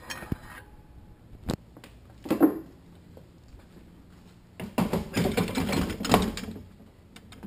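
Metal transmission parts clinking and clanking: a couple of sharp clicks and a louder clank in the first few seconds, then a dense metallic clatter of about a second and a half near the end as the clutch drum is set down on a steel workbench.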